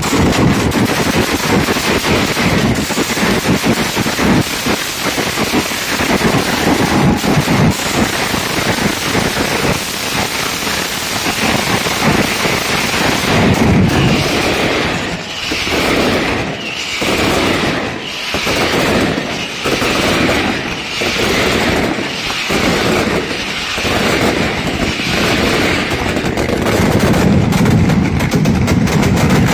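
Mascletà firecrackers going off in a dense, unbroken barrage of rapid bangs. Through the middle the barrage swells and eases in waves about every second and a half, and deeper, heavier blasts build near the end.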